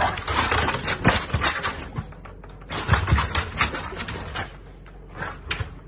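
A French bulldog burrowing into a padded fabric pet bed: rapid scratchy rustling of the fabric in two bouts, the second with a few heavy thumps.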